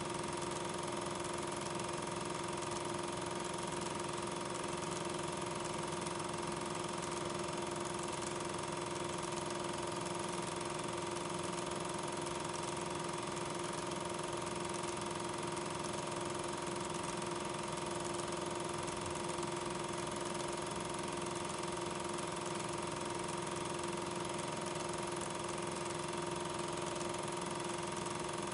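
Steady mechanical drone with constant hum tones, unchanging throughout: a film projector running during the transfer of silent regular 8 mm film, not the streetcars themselves.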